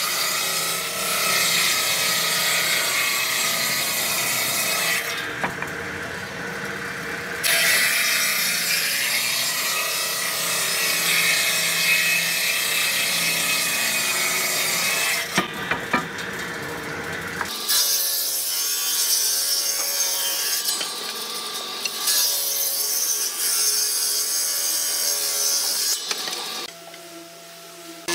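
Table saw running and ripping wooden boards along the fence: a steady machine hum with the blade's rasping hiss through the wood on top. About two-thirds of the way through the sound changes abruptly and the low hum drops away, and it falls quieter for a moment near the end.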